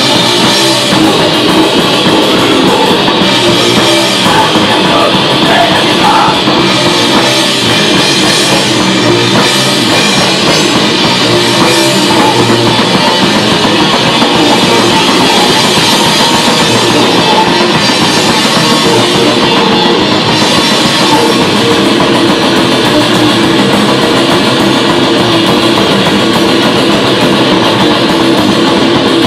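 A rock band playing live, bass guitar and drum kit with cymbals, loud and dense without a break.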